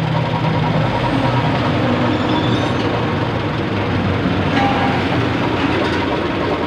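Third-generation Honda CR-V's engine idling steadily with the radiator cooling fan rushing. The engine is at running temperature and the coolant has been bled free of air bubbles.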